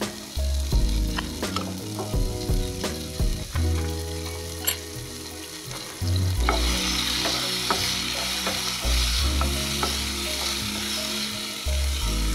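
Diced pieces sizzling in a frying pan on a gas stove, with a wooden spatula knocking and scraping against the pan as they are stirred. The sizzle grows louder about six seconds in.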